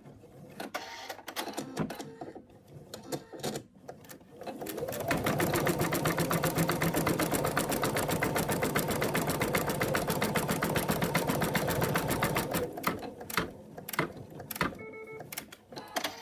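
Embroidery machine stitching an ear onto an in-the-hoop stuffed toy: a fast, even run of needle strokes starts about four and a half seconds in and stops a few seconds before the end, with scattered light clicks before and after.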